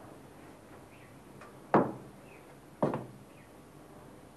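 Two sharp knocks about a second apart, each dying away quickly.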